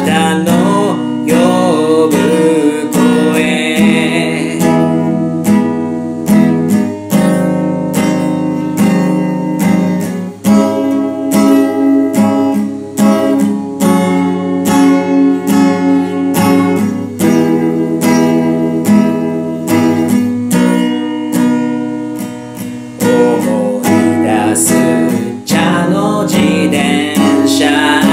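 Acoustic guitar strummed in a steady rhythm through an instrumental break between verses, chords ringing. A man's singing voice comes back in near the end.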